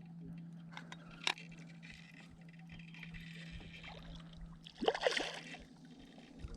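Water sloshing and trickling around a kayak while a fish is played, with a sharp click about a second in and a louder brief burst of sound about five seconds in.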